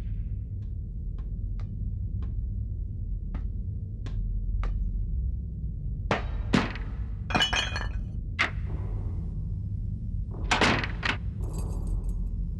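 A series of sharp knocks and clinks over a steady low hum: faint ticks at first, then louder knocks with a high, glassy rattle, and the loudest cluster of impacts about ten and a half seconds in.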